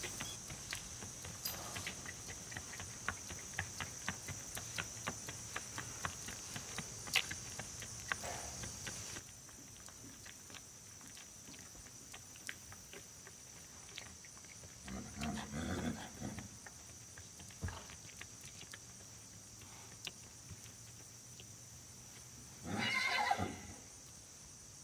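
A young horse's hooves clip-clopping on asphalt at a walk for roughly the first third, over a steady high buzz of insects. Later the horse gives a short low call, and near the end a louder whinny.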